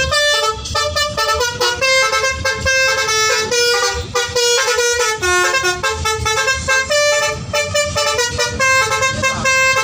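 Bus telolet horn: a set of multi-tone air horns playing a quick tune of short notes that step up and down in pitch.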